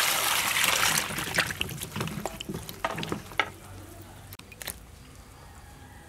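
Running tap water pouring onto vegetables in a metal bowl while a hand rubs them clean: a strong rush of water for about the first second, then splashing and knocks of vegetables against the bowl, dying down to a few small drips and clicks after about four seconds.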